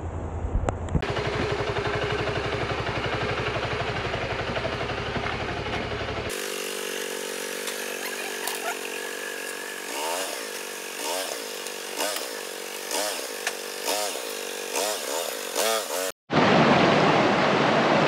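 Motorcycle engine running for the first few seconds. It gives way to a thinner sound with a rising-and-falling pitch repeating about once a second. In the last two seconds a loud, even rush of fast-flowing stream water takes over.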